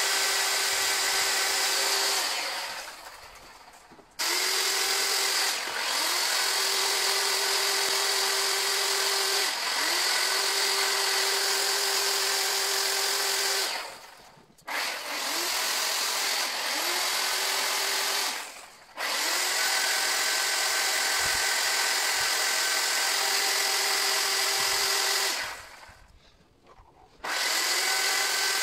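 Chainsaw carving into a wooden sculpture, running at a steady high speed in long bursts that stop almost completely four times and pick up again with a quick rise in pitch.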